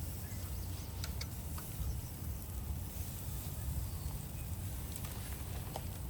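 Outdoor grilling ambience around skewered shashlik: a steady low rumble with a few faint, sparse crackles and ticks from the grill.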